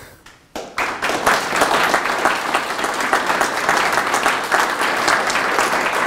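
Audience applauding: many hands clapping together, breaking out suddenly about half a second in and holding steady.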